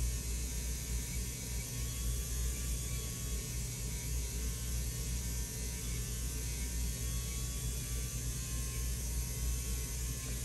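Steady low electrical hum with a faint even hiss, and no other distinct sound.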